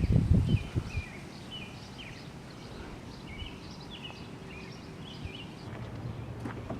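Birds chirping over and over in short, quick calls, with gusty wind buffeting the microphone in a low rumble for the first second. A low steady hum comes in near the end.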